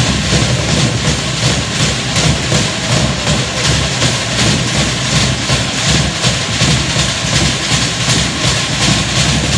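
Loud, fast, steady drumming with a driving beat.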